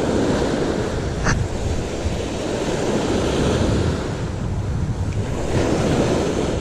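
Surf breaking and washing on a pebble beach, with wind buffeting the microphone. A single short, sharp click about a second in.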